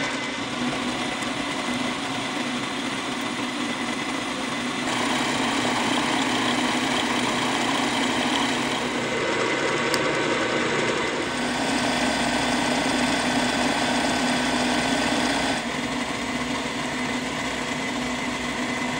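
Vertical milling machine running, its end mill cutting steel bar stock with a steady machine whine. The tone and level shift abruptly a few times.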